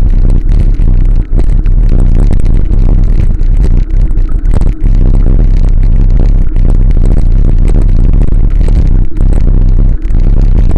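Heavy wind rumble on the microphone of a camera mounted on a moving bicycle, with rattling and short knocks from the mount as the bike rolls over cracked asphalt.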